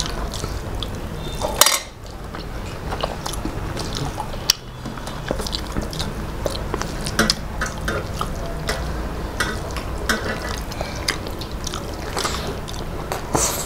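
Eating by hand from steel plates: fingers mixing rice and fish curry make wet squishing and scattered clicks against the metal, with chewing. Two louder knocks come about two and four and a half seconds in.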